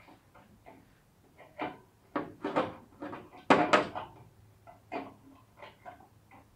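Irregular clicks and knocks of tools and small parts being handled during work on a garden tractor, with a louder clatter about three and a half seconds in, over a faint steady hum.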